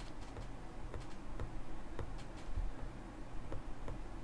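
Light, irregular clicks and taps of a stylus writing on a tablet screen.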